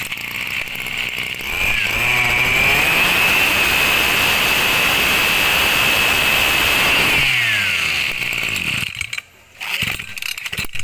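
Tanaka PUM-270S 27 cc two-stroke brushcutter engine being test-run. It is revved up to full throttle for about five seconds, then drops back to idle.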